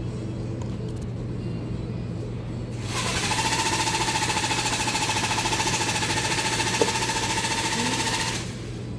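A small electric motor device switches on about three seconds in and runs for about five seconds with a fast, even pulsing and a steady whine, then stops. A low steady hum runs underneath throughout.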